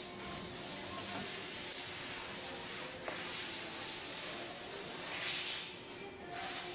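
A loud, steady hiss like a pressurised spray, with a faint steady hum beneath. It breaks briefly about three seconds in, stops near the end, and starts again just after.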